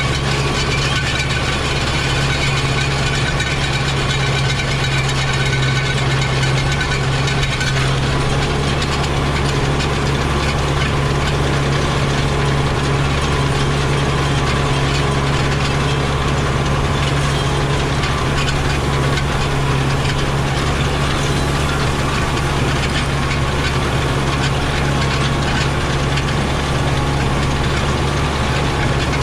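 Engine running steadily at a constant speed, with a steady low drone. A higher mechanical whirr running over it cuts off about eight seconds in.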